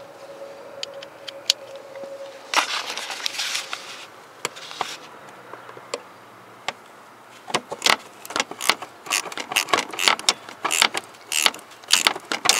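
Metal tools being handled, with clinking and rustling, then from about halfway on a quick run of sharp clicks from a socket wrench's ratchet.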